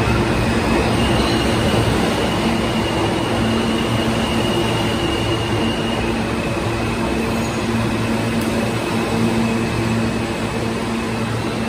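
NYC subway R160 train pulling into the station along the platform: a steady rumble of steel wheels on rail with a motor hum. A thin high whine is held over it and drops slightly in pitch about halfway through.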